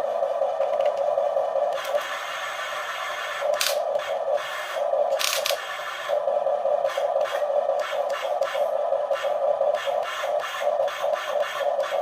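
Small electric motors of a Huina 1550 RC excavator whirring in stops and starts, with short scratchy bursts as the bucket works the sand.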